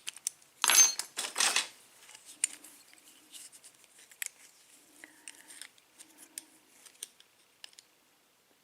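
Metal handling noises from a euro lock cylinder and its key being worked by hand: two short rasping scrapes about a second in, then light, scattered clicks and ticks.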